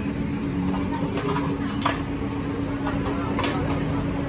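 Steady mechanical hum of the electric blowers that fan the charcoal cooking stoves. Over it come a few sharp metallic clanks of woks and utensils, the loudest about two seconds in.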